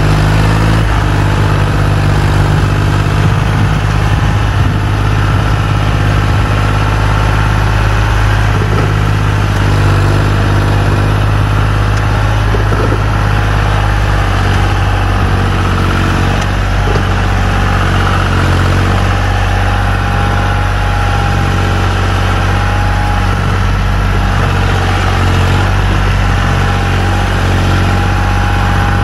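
John Deere 5042 D tractor's three-cylinder diesel engine running steadily under heavy load, pulling a fully loaded trolley hard enough that the front wheels lift off the ground.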